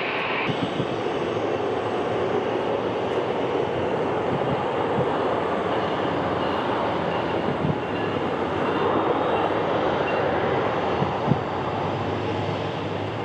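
Jet airliner engines running, a steady rushing noise that swells slightly toward the later part, with a few short low thumps near the end.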